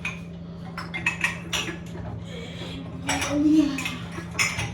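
Metal kitchen utensils and dishes clinking and clattering in a string of sharp knocks, the loudest near the end, over a steady low hum.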